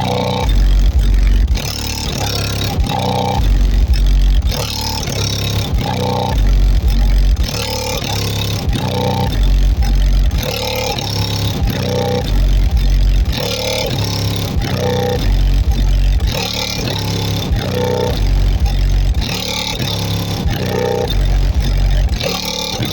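A hip-hop beat with a heavy, repeating deep bass line, played loudly through a car's stock stereo and subwoofer.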